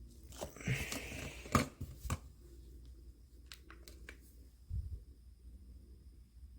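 Hands working on small iPod parts: a rustle with a cluster of clicks in the first two seconds, then a few light clicks and a dull thump about five seconds in.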